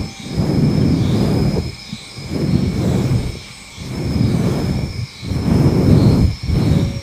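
Hands stroking and rubbing over the microphone in slow, repeated passes that mimic head pats, each pass a deep rumbling swell; about five strokes.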